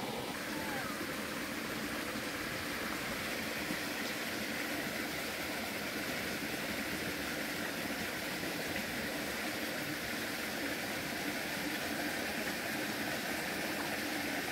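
Steady rushing of a shallow stream flowing over rock.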